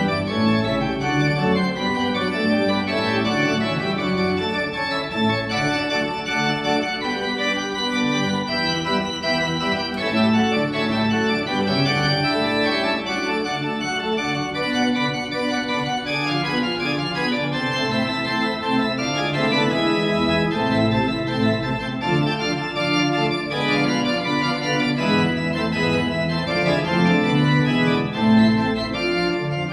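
Pipe organ playing a continuous passage of many notes at once, with chords and moving lines that change without a break.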